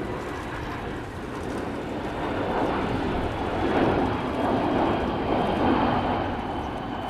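Kawasaki P-1's four turbofan engines during a flypast, the jet noise swelling to its loudest about four seconds in, with a faint high whine falling slowly in pitch.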